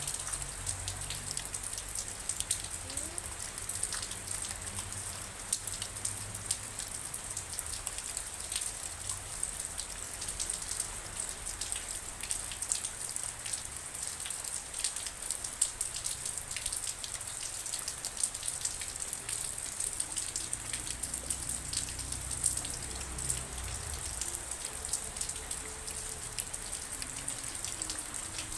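Steady rain with dense, closely spaced drop impacts over an even hiss.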